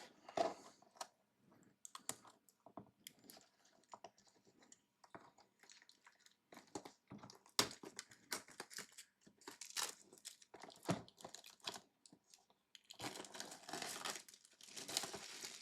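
Plastic shrink wrap being picked at and torn off a cardboard trading-card box by hand, without a knife. Faint scattered crinkles and clicks, with longer spells of crackling, tearing plastic near the end.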